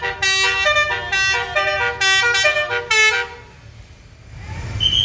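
Bus telolet horn of the Basuri type playing a quick tune of changing notes, then stopping about three and a half seconds in. A low rumble rises near the end.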